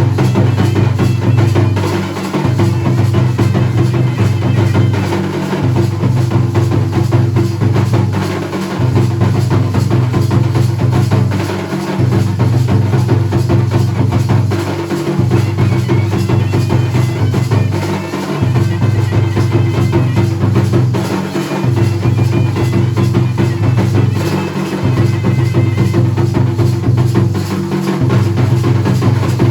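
Dhol and nagada drums played in a fast, continuous rhythm, over a loud low sustained tone that drops out briefly about every three seconds.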